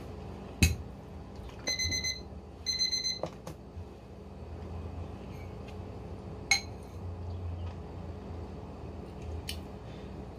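A metal spoon clinks sharply against a ceramic soup bowl several times, loudest about half a second in, as the soup is stirred and scooped. Two short bursts of rapid high beeping come in between, about one and a half and three seconds in.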